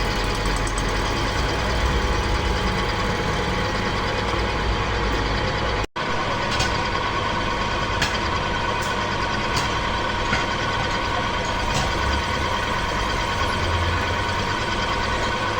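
Metal lathe running steadily with a constant whine and a few light ticks, as it machines a two-stroke motorcycle cylinder head. The sound cuts out briefly about six seconds in.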